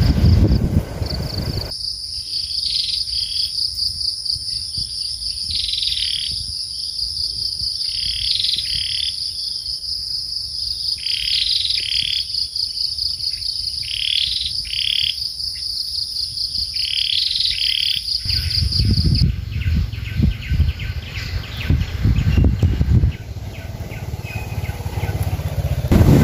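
Crickets trilling steadily and high, with a bird's two-note call repeating about every three seconds over them. The early-morning chorus gives way to a low rushing noise about two-thirds of the way through.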